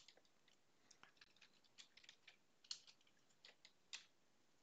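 Faint computer keyboard keystrokes, typing in short irregular runs with brief pauses between them.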